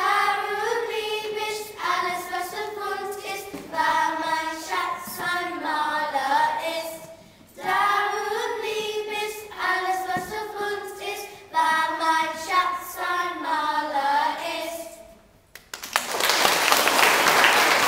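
Children's choir singing a song in unison, in phrases broken by short breaths. The song ends about fifteen seconds in, and applause breaks out near the end.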